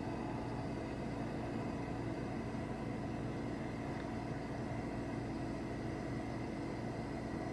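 Steady hum and hiss inside a parked car's cabin, from the idling engine and the air-conditioning fan.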